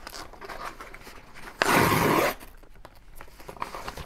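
Padded kraft paper cushion mailer rustling and crinkling as it is handled, with one loud crackling rustle lasting under a second about a second and a half in, among faint paper clicks.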